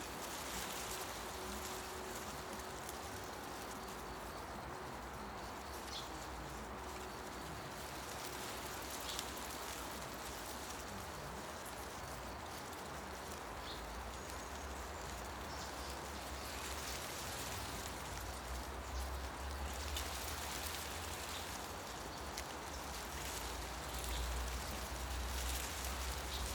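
Forest ambience: wind through tree foliage makes a steady rustle of leaves that swells in gusts about two-thirds of the way in and again near the end, with a low rumble of wind. A few faint, brief bird chirps come through now and then.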